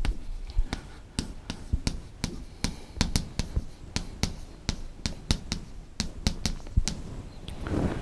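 Chalk writing on a blackboard: an irregular run of sharp taps and clicks as the chalk strikes and drags across the board letter by letter. A soft rushing noise rises near the end.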